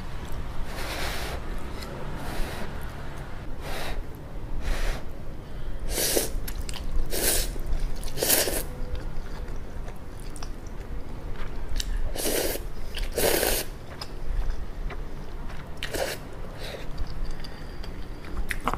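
Close-miked slurping and chewing of instant ramyun noodles: about ten short, hissing slurps spaced irregularly a second or more apart, with chewing in between.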